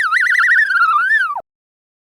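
Imperial mouse droid vocal effect: one warbling electronic chirp, trilling rapidly, then swooping down and cutting off about a second and a half in.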